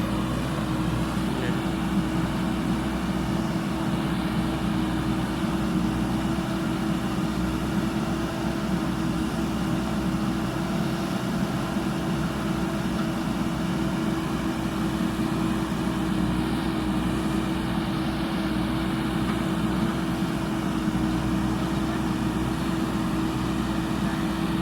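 JCB 3DX backhoe loader's diesel engine running steadily, with a constant hum.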